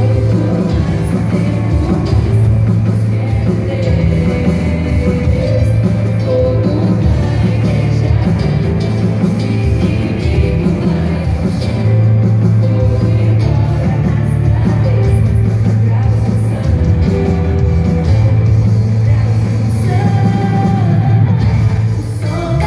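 Rock-style worship song with singing over a full band and a heavy, steady bass.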